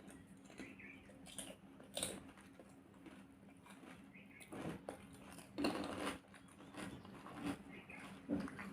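Pani puri being bitten and chewed: crisp puri shells crunching in short, scattered bites with chewing between them. The loudest bite comes about five and a half seconds in.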